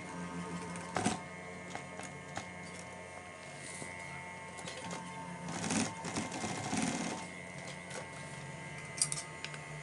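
Industrial single-needle sewing machine stitching a binding strip through vinyl, its motor humming steadily, with a few sharp clicks.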